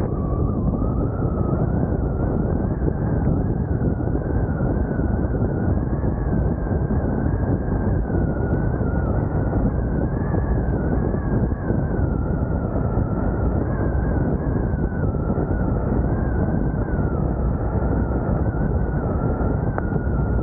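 Loud, steady rush of wind and tyre noise inside a car driving fast on a wet highway, with a thin high whistle wavering up and down over it.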